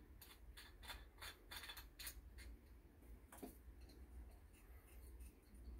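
Brass oil-lamp burner being screwed by hand onto the neck of an empty gas canister: faint metal ticks and scrapes, about three a second for the first two seconds or so, then one more tick about three and a half seconds in.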